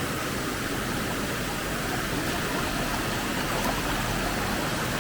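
Steady rush of water from a small waterfall and its stream.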